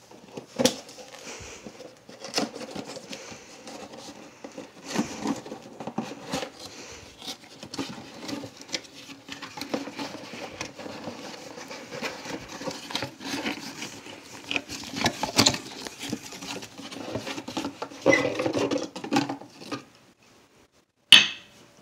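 Cardboard box being opened and handled: scratchy rustling and scraping of cardboard with many small knocks as the flaps are pulled open and a nutcracker figure is drawn out. After a brief pause near the end, one sharp knock as the figure is set down on the countertop.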